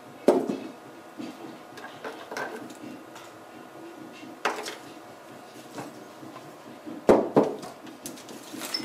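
Plastic clicks and knocks from handling a three-stage water filter housing and fitting cartridge clip brackets to its plastic mounting bracket. There is a sharp knock just after the start, another about halfway, and a pair of the loudest knocks near the end as the housing unit is set down upright.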